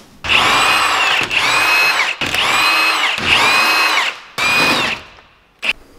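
Cordless impact wrench undoing the wheel nuts on a Nissan 350Z, run in five bursts of about a second each. In each burst the motor's pitch rises and then falls back.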